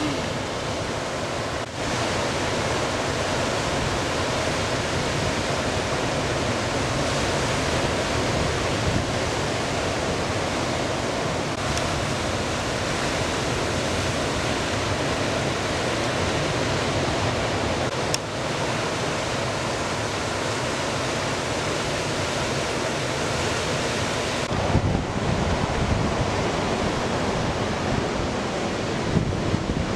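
Ocean surf breaking and washing in, a steady rushing noise, with wind on the microphone.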